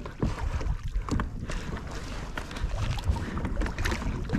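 Wind buffeting the microphone and water lapping against a plastic pedal kayak's hull, with scattered small knocks and clicks.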